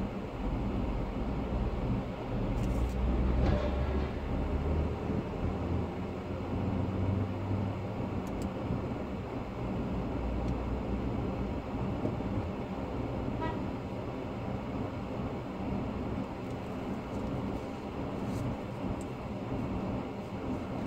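A vehicle driving at speed on an expressway: a steady rumble of tyres and engine, with a few faint clicks.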